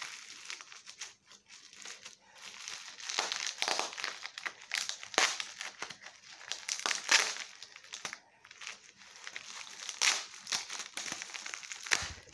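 Packing material crinkling and rustling in irregular bursts as a parcel is unwrapped by hand, with a short low thump near the end.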